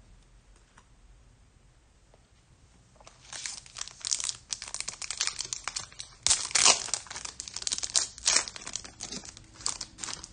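Foil trading-card pack being torn open by hand, the wrapper crinkling and ripping in a run of crackly tears and rustles that starts about three seconds in and is loudest a little past the middle.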